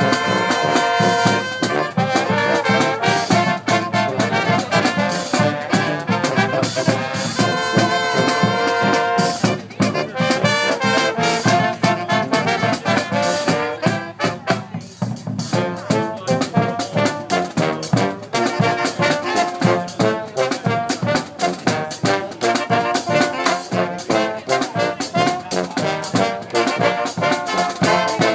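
Live brass band playing: trombones, trumpets and saxophones over snare and bass drum keeping a steady beat, with long held chords near the start and again about eight seconds in.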